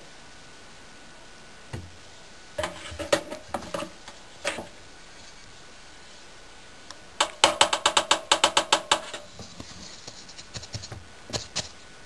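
Sharp knocks and clicks from handling at a front-loading washing machine's drum opening as cushions are loaded: a few scattered knocks, then a fast run of about seven clicks a second for nearly two seconds, then a couple more near the end.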